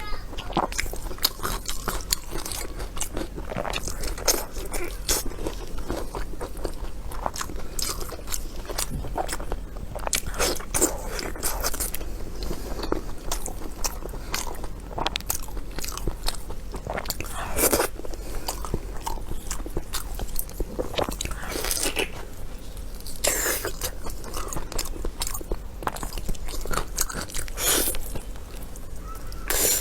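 A person eating food close to the microphone, biting and chewing. There is a dense, irregular run of sharp clicks and mouth smacks, with a few louder bites toward the middle and end.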